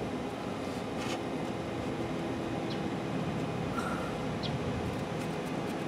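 Steady background hum and hiss with a few faint ticks, one about a second in and others later.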